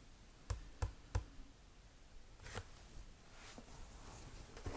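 Faint handling noises: three light taps about a third of a second apart, then soft, quiet rustling as objects are moved about.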